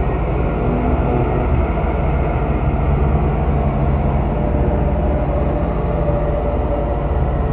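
Horror sound effect of tormented souls: a steady, dense low rumbling drone with faint wavering wails layered over it.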